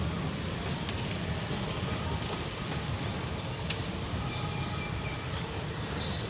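Passenger train rolling out of a station: a steady low rumble with a thin, steady high-pitched whine over it, and a single sharp click a little past halfway.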